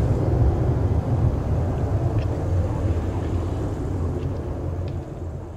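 Low rumble of a Fokker 100's Rolls-Royce Tay turbofan engines as the jet climbs away after takeoff, fading over the last second or so.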